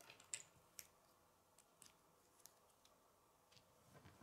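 Plastic K'nex rods and connectors clicking faintly as they are handled and fitted together, with a few scattered clicks and the sharpest one near the start.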